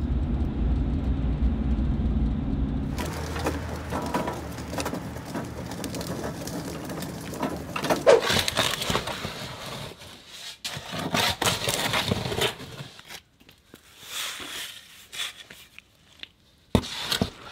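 Low rumble of a vehicle cabin on the move for about three seconds, then an abrupt switch to scraping and crackling handling noises around bags of concrete mix and wet concrete, with a few sharp knocks near the end.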